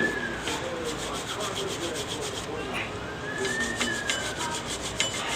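A brush scrubbing a brake part clean: quick, repeated rubbing strokes.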